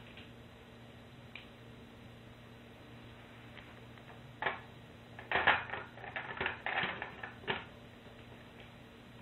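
Plastic Lego bricks clicking and clattering as they are handled and pulled apart, a quick cluster of sharp clicks about halfway through, over a faint steady hum.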